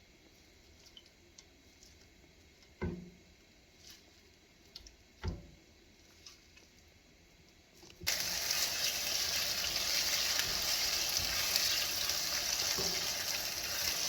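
Two soft knocks, then about eight seconds in a loud, steady sizzle starts suddenly: minced beef frying in a pan.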